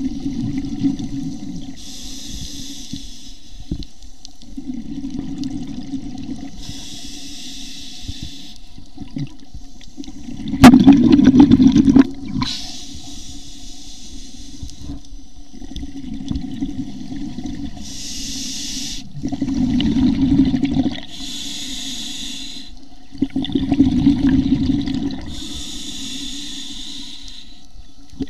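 Scuba diver breathing underwater through a regulator: a hiss from the demand valve on each inhalation alternates with a rumble of exhaust bubbles on each exhalation, about six breaths in a steady cycle. The loudest bubble rumble comes about 11 seconds in.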